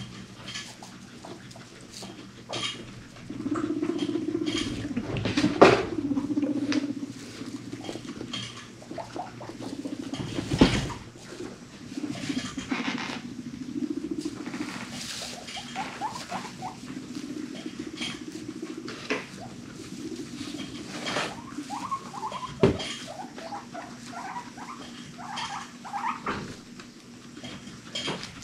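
Guinea pigs rumbling in bouts of a few seconds, the low vibrating purr of rumblestrutting, a courtship or dominance display. Between the bouts come small pattering steps and rustles in hay, a few sharp knocks against cardboard hideouts, loudest about six and eleven seconds in, and runs of short squeaks in the second half.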